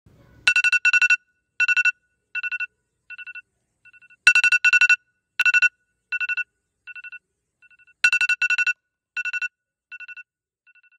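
Phone alarm ringing: rapid beeps at one fixed pitch in short clusters. Each round starts loud and fades away in steps, and the round repeats three times.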